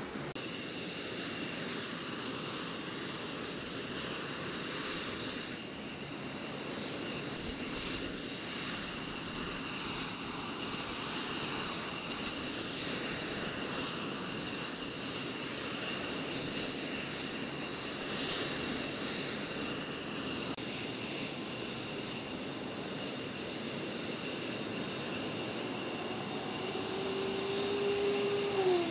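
Aircraft engines running on the ramp: a steady rushing noise with several high, steady whines over it. Near the end a tone slides down in pitch.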